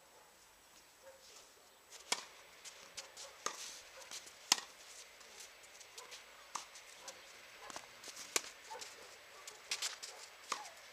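Tennis ball being struck and bouncing on court, sharp knocks at irregular intervals, with lighter clicks in between.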